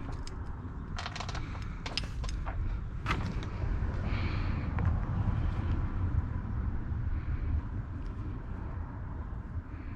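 A quick series of sharp clicks and taps from handling a motorcycle LED turn-signal part in the first three seconds, over a steady low rumble.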